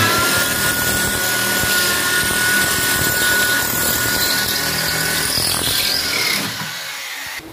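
A handheld electric power tool spins up with a quickly rising whine. It runs at a steady high whine under loud hiss for about five and a half seconds, then winds down.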